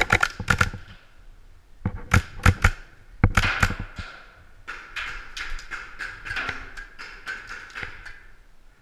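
Paintball marker firing several rapid volleys of sharp pops, about six shots a second, with a longer, more ragged run in the second half.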